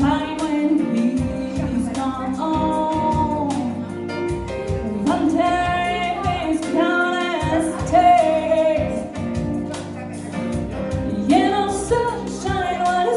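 A woman singing a jazz song into a microphone, accompanied by an electric keyboard, in a live amplified performance.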